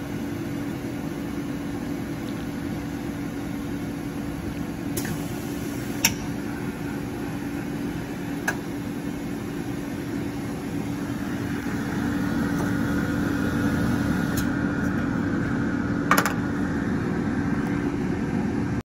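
Ultra Optics lens hard-coating machine running with a steady mechanical hum and a few sharp clicks. About twelve seconds in it gets louder and a higher whine joins the hum.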